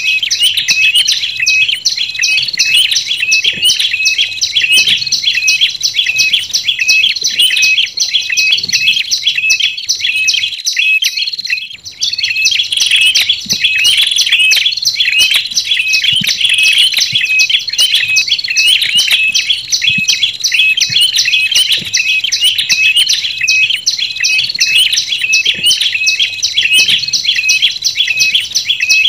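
Bird-lure recording of olive-backed tailorbird song mixed with ashy tailorbird song: a dense, rapid run of repeated high-pitched chirps, with a short pause about eleven seconds in.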